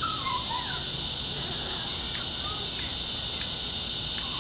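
Steady high-pitched chorus of insects such as crickets on a summer evening, with four light clicks spaced about half a second or more apart in the second half.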